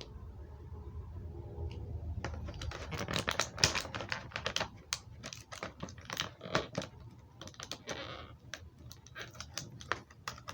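Hard plastic action-figure parts clicking and clattering as they are handled, posed and swapped. After a low handling rumble, many small, irregular sharp clicks begin about two seconds in, with one short scraping rasp near the end.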